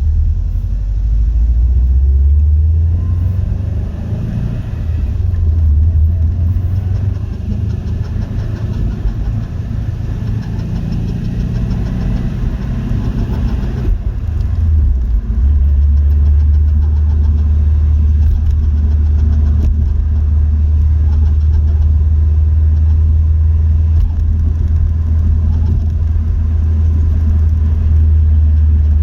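Subaru Impreza WRX STI (GDB-B) running with a loud low rumble that wavers for about the first half, then settles into a steady drone.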